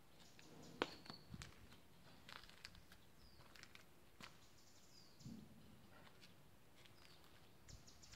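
Near silence: faint outdoor background with a few short, high bird chirps and scattered light clicks.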